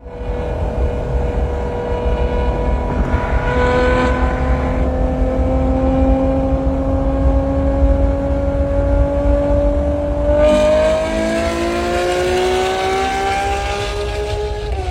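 Naturally aspirated V12 car engine running hard under load, its pitch climbing slowly and steadily. About ten seconds in the note changes and climbs more quickly.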